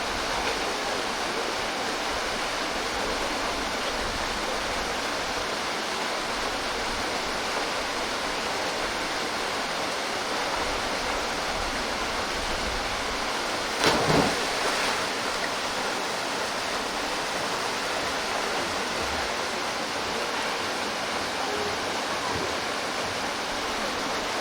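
Steady rushing of a mountain-valley waterfall pouring into its pool. About two-thirds of the way through there is one sudden loud burst lasting about a second.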